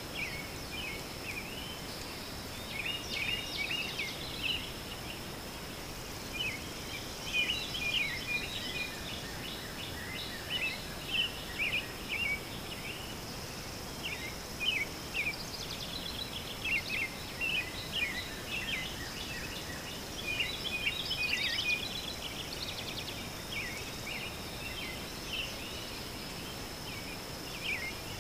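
Small birds chirping and twittering in a continuous scatter of short high calls, over a faint steady high-pitched whine.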